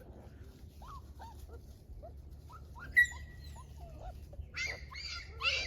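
Young puppies whimpering in short, thin squeaks, with one sharp high yip about three seconds in and louder whining cries near the end.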